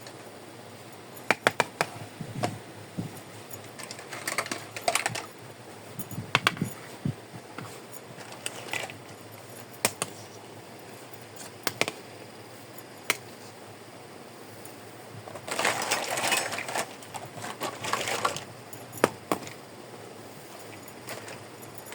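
Small plastic toy kitchen pieces being handled, giving scattered sharp clicks and taps. There are a few longer stretches of rustling, the loudest a little past the middle.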